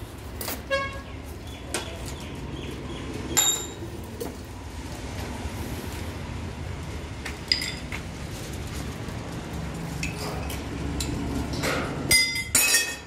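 Scattered light metallic clinks and taps, some with a short ringing tone, over a steady low hum, with the loudest few close together near the end.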